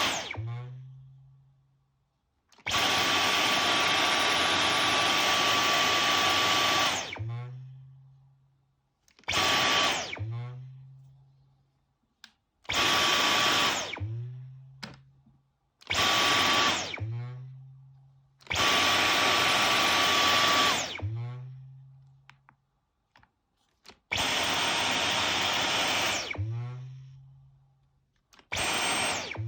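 Brand-new Dyson V11 Animal cordless vacuum switched on and off about seven times, running with a high whine for anywhere from under a second to about four seconds and winding down after each stop. A low hum follows each shutdown for about a second; the owner calls the vacuum's behaviour a strange noise.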